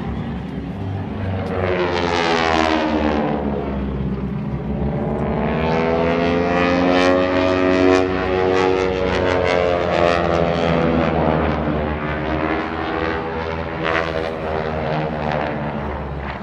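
Propeller airplane flying low overhead: a steady engine and propeller drone swells and fades, its pitch sliding as it passes, loudest about halfway through.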